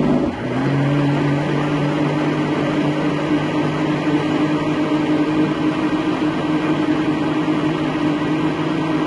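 Electric countertop blender switched on and running steadily as it churns milk and mango pieces; its motor hum rises briefly in pitch as it spins up, then holds.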